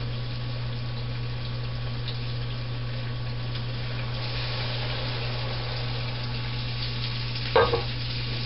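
Sausage and chicken broth simmering and sizzling in a skillet: a steady bubbling hiss that turns hissier about halfway through, over a steady low hum. A brief louder sound near the end.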